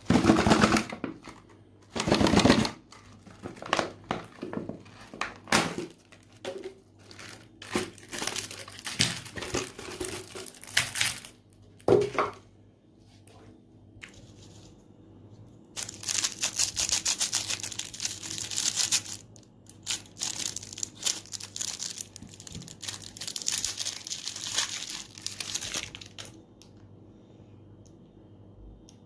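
Crinkling and tearing in irregular bursts, with two longer stretches of dense crackling past the middle.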